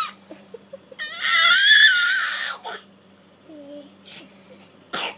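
A toddler's high-pitched squeal of delight, starting about a second in and lasting about a second and a half, wavering in pitch. A short sharp noise follows near the end.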